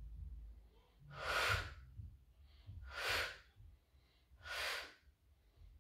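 A woman breathing audibly while exercising: three strong breaths about a second and a half apart, with quiet between them.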